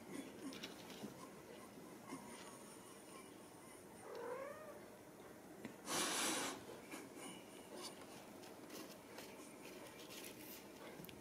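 A Ragdoll kitten gives one short meow that rises and falls, about four seconds in. About six seconds in comes a brief, loud burst of hissing noise, the loudest sound here, with faint scattered ticks and taps around it.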